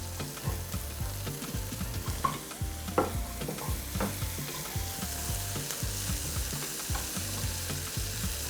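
Seasoned vegetables and carrots sizzling in a hot pan while being stirred, with a spatula scraping and knocking against the pan, a few sharper knocks about two, three and four seconds in.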